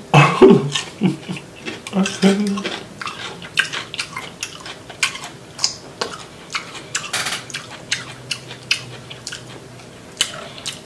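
Close-miked eating: wet chewing and smacking, with many sharp clicks as cucumber is bitten and boiled crawfish are picked apart by hand. A few short muffled vocal sounds come in the first couple of seconds.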